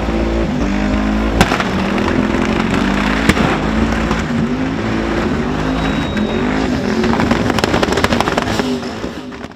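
Twin-turbo Commodore burnout car revving hard on the limiter during a burnout, the engine note rising and falling, with sharp cracks through it and a quick run of cracks near the end. The sound fades out at the very end.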